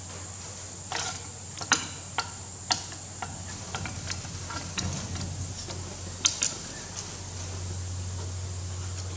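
Irregular sharp metallic clicks and clinks as a screwdriver pries and taps at the stuck thick steel washer on the drive shaft of a CAV rotary diesel injection pump, with an adjustable wrench holding the shaft. The clicks come in two groups, one about a second in and one past the middle, over a steady low hum.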